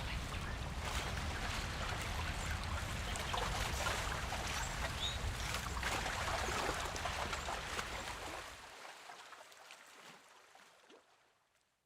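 Outdoor ambience: a low rumble like wind on the microphone, under small splashes and crackles like lapping water. It fades out over the last few seconds.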